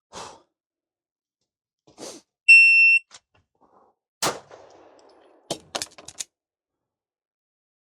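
Shot timer's start beep, a steady electronic tone of about half a second, then about a second and a half later a single pistol shot, followed by a quick run of sharp metallic clicks as the pistol is reloaded.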